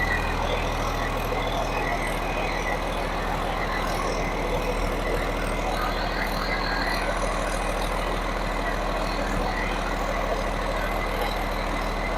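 Freshly rebuilt Caterpillar 3176C inline-six diesel engine of a CAT 163H motor grader idling steadily just after its first startup, running smooth.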